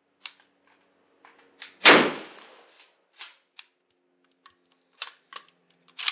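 A single loud shot from an Arsenal SLR-106UR AK pistol in 5.56 about two seconds in, ringing off for nearly a second. Fainter short, sharp clicks and snaps come before and after it, with a quick run of them near the end.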